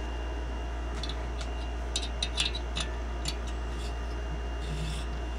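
A few sharp, irregular metallic clicks from a ratcheting wrench on a thread tap chasing the damaged spark plug threads in a VW Beetle cylinder head, over a steady low hum.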